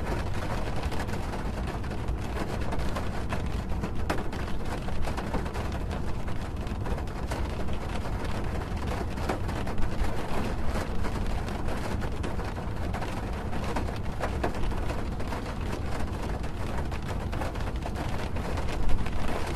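Rain falling on a car's roof, heard from inside the car: a dense, steady patter of drops over a low rumble, with a slightly louder spell near the end.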